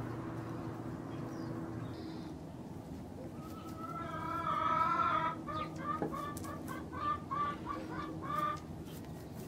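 A chicken calling: one drawn-out call about three and a half seconds in, then a run of about eight short, evenly spaced clucks.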